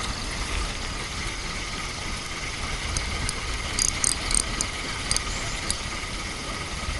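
Lakeside outdoor ambience: steady insect chirring over a low rumble, with a run of short, sharp clicks about halfway through.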